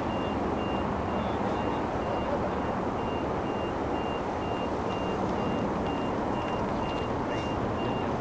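Steady distant roar of a Boeing 747-8F's four GEnx jet engines as the freighter climbs away. Over it, a vehicle's reversing beeper sounds in a steady run of short beeps, a little over two a second.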